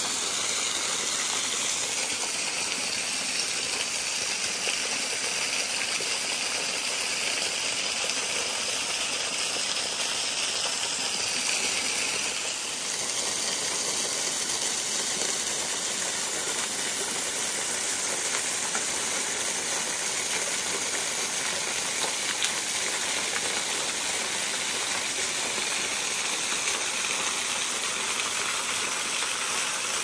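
Small waterfall spilling steadily over rock into a shallow pool: a continuous splashing hiss of falling water.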